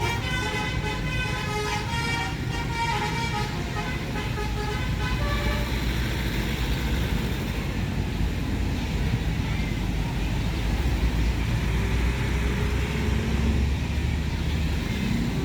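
A road vehicle's musical telolet-style horn plays a quick run of stepped notes, stopping about five seconds in. Engine and traffic rumble continues underneath and after it.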